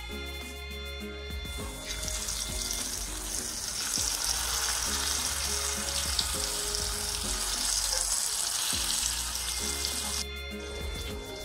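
Spice-coated fish pieces shallow-frying in hot oil in a pan, sizzling steadily. The sizzle comes in about two seconds in and drops away near the end, with background music underneath.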